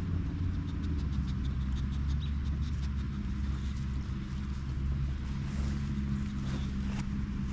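Steady low hum of an engine running, with scattered light ticks over it.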